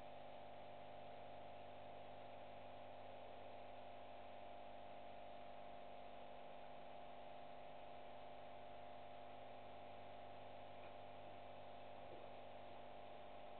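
Faint steady hum made of several constant tones over a low hiss, with no other sound.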